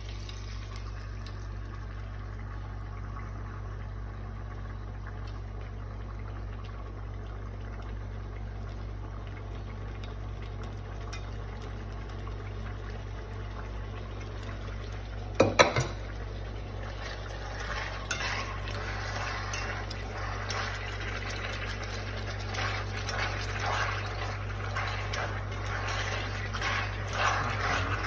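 Cooking in a pot on an induction cooktop over a steady low hum. Scallion oil is spooned onto raw chicken pieces, and a sharp clatter of utensils on the pot comes about halfway through. After that a crackling sizzle builds as the oil heats under the chicken, with chopsticks stirring.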